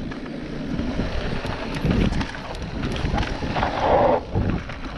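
Mountain bike rolling over a dry dirt singletrack: tyre noise on the dirt with scattered clicks and rattles from the bike, and wind on the microphone.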